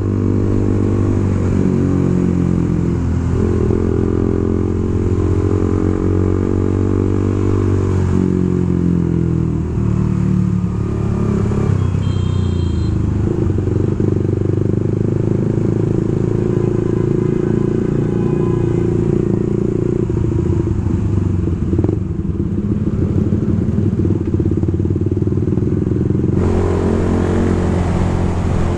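Suzuki GSX-R150's single-cylinder engine running while the motorcycle is ridden, its pitch rising and falling with the throttle.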